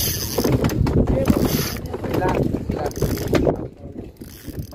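Spinning fishing reel being cranked during a fight with a hooked ladyfish, a dense mechanical whirring that drops away near the end.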